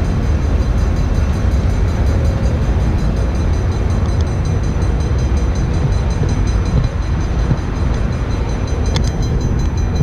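Wind buffeting the microphone on a ship's open deck: a steady, loud, flickering low rumble.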